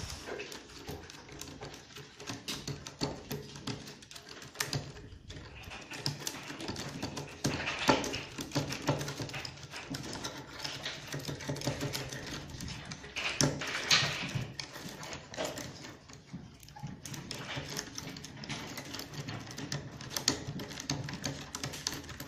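Wooden beads of a toy abacus clicking and clacking irregularly as a raccoon paws and pushes them along the rods, with a few louder knocks.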